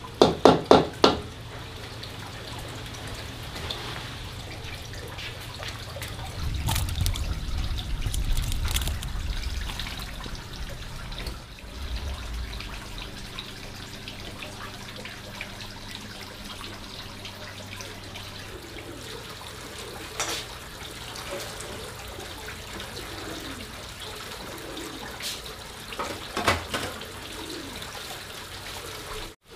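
Water trickling and dripping, like washing at a kitchen sink, with a quick cluster of sharp knocks about a second in and a couple more knocks later on.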